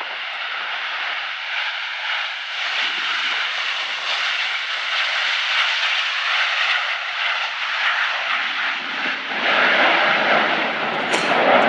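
Jet engines of Canadian Snowbirds CT-114 Tutor jets in flight, each with a single GE J85 turbojet: a steady rushing noise that slowly grows louder, then swells and deepens about nine seconds in.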